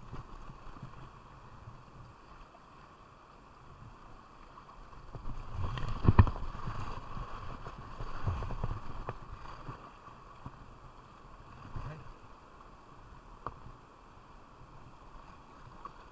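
Kayak in whitewater: steady rushing water around the boat, with a loud burst of splashing and knocks about six seconds in and smaller splashes and single knocks later.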